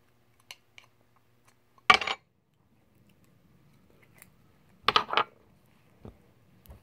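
Hands handling a small metal tin of putty and the putty itself: a few faint clicks, a loud short rustling burst about two seconds in, and two more close together near five seconds in.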